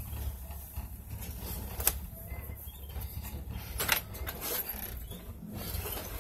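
A parked vehicle's engine idling with a steady low rumble, with sharp clicks or creaks about two and four seconds in.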